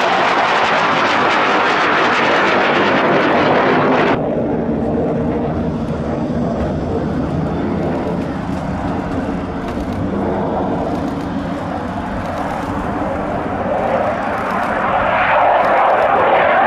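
JAS 39 Gripen fighter's jet engine running loud in a fly-past, cut off abruptly about four seconds in. Then Aero L-159 light combat jets running through their takeoff and climb-out, growing louder again near the end.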